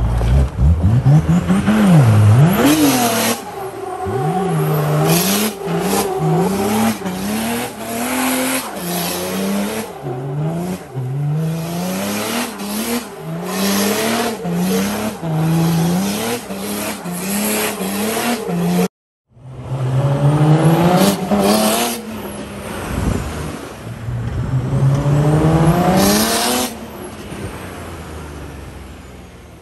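Mercedes OM606 six-cylinder turbo diesel in a Nissan Patrol being revved hard again and again under wheelspin, its pitch climbing and dropping back about once a second, with tyre squeal. After a brief break it makes two longer climbs, then dies away near the end.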